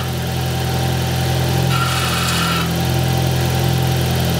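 Peugeot 205 GTI engine running steadily at a fast idle, its throttle wedged open, with a faint metallic rattle ('bruit de ferraille') from a loose sheet-metal panel touching it: the cause of the noise the owner was tracking down. A brief burst of higher-pitched noise comes about two seconds in.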